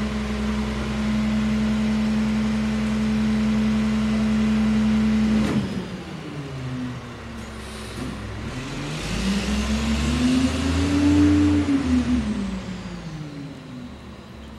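Garbage truck's diesel engine running at steady high revs, then dropping abruptly to idle about five seconds in. A short hiss of air follows, then the engine revs up and back down as the truck pulls away.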